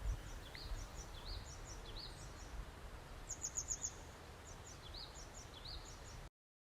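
Small birds chirping over a steady low background hum, short high notes repeating, with a quick run of five high notes about three seconds in. The sound cuts off abruptly near the end.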